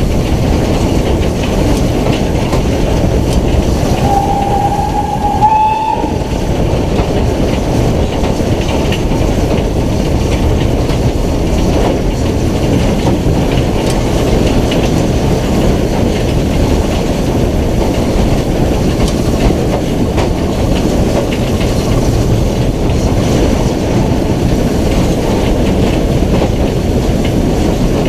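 BR Standard Class 9F 2-10-0 steam locomotive running at speed, heard from a camera on its side: a loud, steady rumble of the engine and its wheels on the rails, with wind on the microphone. About four seconds in, the locomotive's whistle sounds once for about two seconds, rising slightly in pitch just before it stops.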